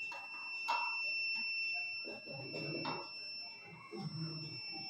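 A steady, high-pitched electronic tone, like a buzzer, sounds without a break, over faint knocks and rustling of hands tightening a satellite dish's metal mounting bracket, with a sharper knock about a second in and another about three seconds in.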